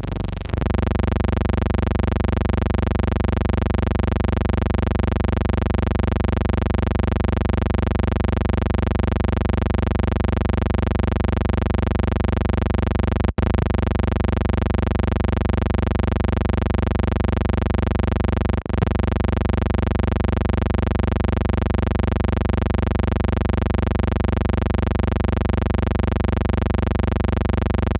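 A steady, unchanging hum with many overtones, the noise on the sound track of a silent film transfer. It drops out twice for a split second, about 13 and 18.5 seconds in.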